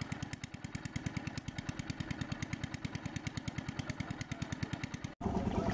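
A small engine running steadily, an even rapid thumping of about ten beats a second; it cuts off abruptly about five seconds in.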